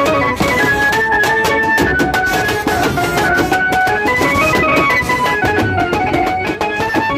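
Lively music: a melody in held, stepping notes over fast, dense drumming.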